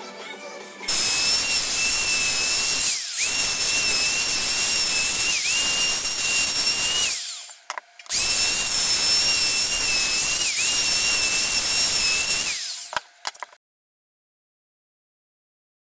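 Handheld electric router with a bearing-guided roundover bit cutting along the edge of an MDF panel: a high steady whine with cutting noise, the pitch dipping briefly as the bit bites. It runs twice, switched off each time and spinning down with a falling whine.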